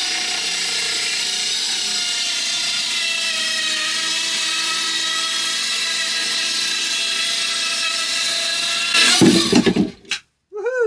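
Cordless power saw cutting through a wooden worktop, its motor running at a steady whine. It gets louder briefly near the end, then stops.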